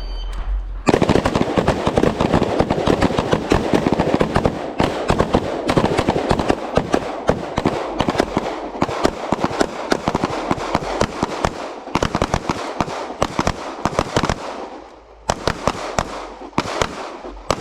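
Rapid, overlapping gunfire from several shooters at once, firing rifles and then pistols in a rifle-to-pistol transition drill. The shots start about a second in, run densely with a short lull near the end, and echo off the range.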